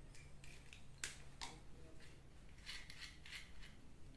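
Faint clicks and rubbing of a plastic drip-irrigation venturi fitting being handled and opened by hand: a couple of sharp clicks about a second in and a quick run of clicks near three seconds.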